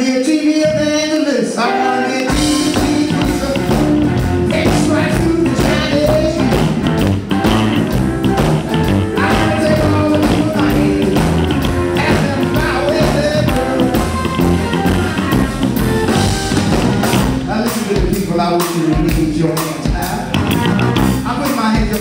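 A live blues band playing, led by electric guitar. A melodic line opens over a thin low end, and bass and drums come in about two seconds in with a steady beat.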